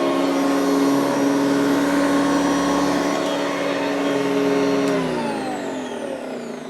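Hoover Decade 80 upright vacuum cleaner's motor running steadily, then switched off about five seconds in and winding down with a falling pitch. It sounds good though not the best, a freshly serviced machine expected to improve with a little use.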